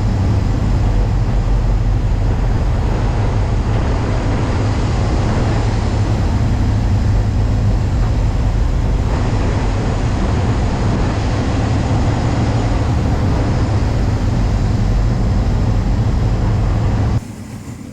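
Loud, steady rumble and rush of a cargo boat under way, heaviest in the low bass. It cuts off abruptly near the end.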